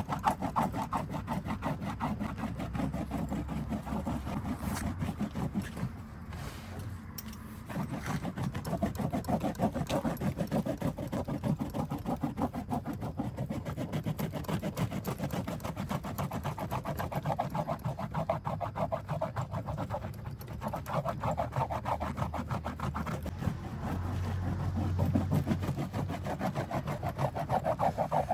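Fast, rhythmic scrubbing with many strokes a second, rubbing against a surface. It eases off briefly about six seconds in and again around twenty seconds.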